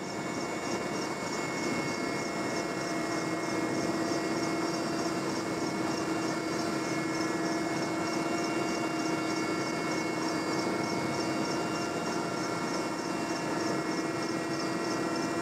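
Helicopter in flight: a steady mechanical drone with a strong fixed hum, several steady higher tones and a rapid high-pitched pulsing.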